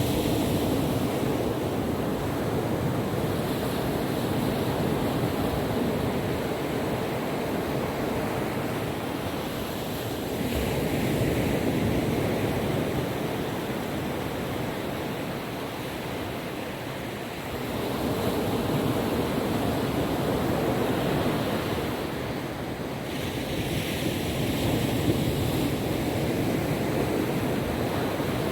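Calm ocean waves washing onto a beach: a continuous rush that swells as each wave comes in, every several seconds.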